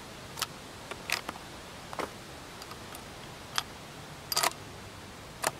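About six sharp metallic clicks and clacks, with a quick cluster near the end, as a Thompson/Center Compass bolt-action rifle is loaded between shots: a cartridge and its magazine are handled and the bolt is worked.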